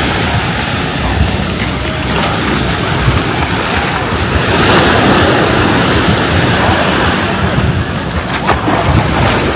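Sea surf washing onto the beach, with wind buffeting the microphone; the wash swells louder about halfway through.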